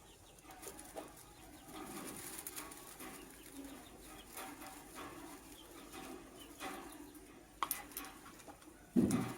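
Caged birds: a soft, steady low murmur of calls with scattered sharp clicks and rustles, and a louder thump about nine seconds in.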